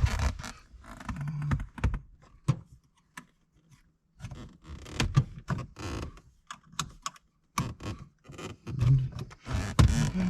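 Irregular clicks and knocks of a pick and tools working the plastic locking tab of a shift lever bracket, with short pauses between.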